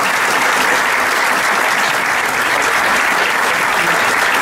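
An audience applauding steadily, dense hand-clapping that neither builds nor fades, marking the end of a speech.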